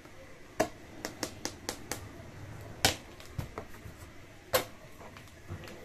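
Packing tape on a cardboard shipping box being cut open with scissors: a series of about ten sharp clicks and snaps at uneven intervals, two of them louder than the rest.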